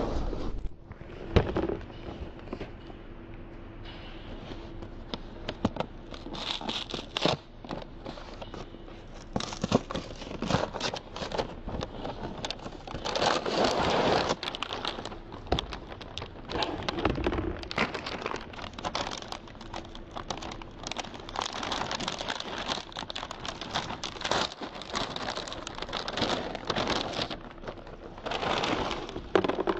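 Cereal packaging being handled and opened: the plastic inner bag of a cereal box crinkling and rustling as it is pulled from the cardboard box and torn open, with the cereal shifting inside and small knocks of cardboard on the table.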